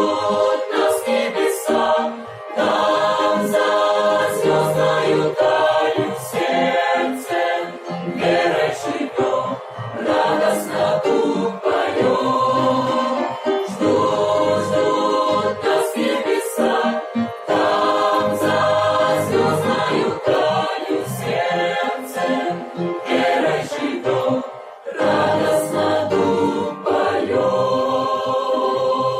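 Choir singing, with sustained chords in short phrases.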